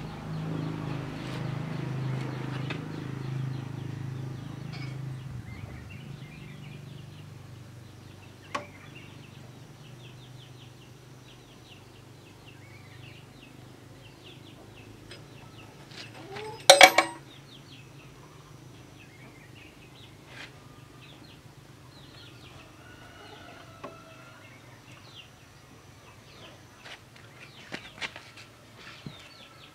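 Outdoor rural ambience: birds chirping and calling throughout, over a low hum that fades over the first few seconds. About 17 seconds in there is one loud, sharp metallic knock.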